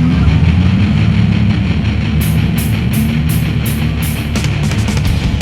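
Loud heavy-metal style rock music with driving guitars; sharp drum and cymbal hits come in about two seconds in and get quicker near the end.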